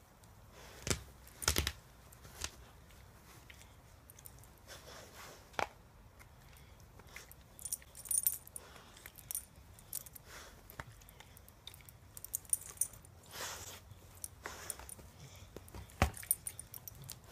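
A dog chewing and worrying a plush toy: irregular soft rustles, mouthing and clicks, with the metal tag on its collar jingling briefly several times as it moves its head, and a sharp clink about sixteen seconds in as it shakes the toy.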